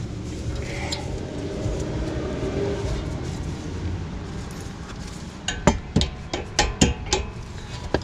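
A quick run of about seven sharp metallic taps, a hammer knocking the brake pad retaining pin through the caliper. They start about five and a half seconds in, over a steady low rumble.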